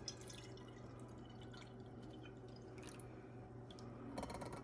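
Fresh goat milk dripping and trickling faintly through a milk filter, in small scattered drips.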